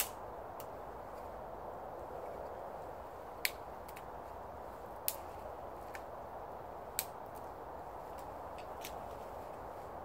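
Steady rushing background noise with several short, sharp clicks over it, the loudest about three and a half, five and seven seconds in.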